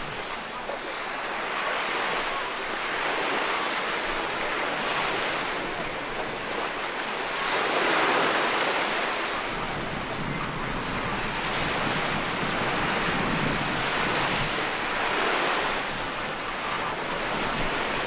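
Ocean waves breaking on the shore, the surf swelling and ebbing every few seconds, loudest about eight seconds in.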